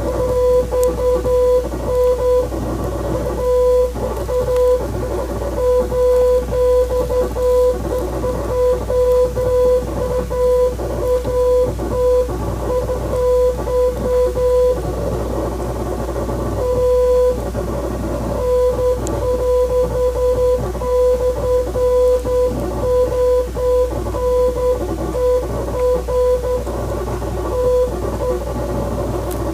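Morse code: a steady beep tone keyed on and off in long and short pieces, dashes and dots, with a short pause about halfway. Background music with plucked guitar plays underneath.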